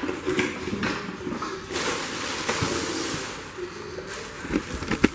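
Unpacking and handling noise from a floor cleaner's box and parts: scattered clicks and knocks, a stretch of rustling in the middle, and a few sharper knocks near the end.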